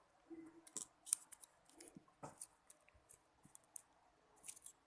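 Faint, irregular clicks and ticks of a honey container being handled as honey is squeezed into a glass.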